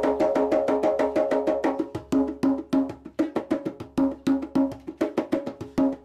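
Djembe played by hand in a fast, even rhythm, a basic djembe pattern. Some strokes ring with a low, full tone and others are sharp, high slaps.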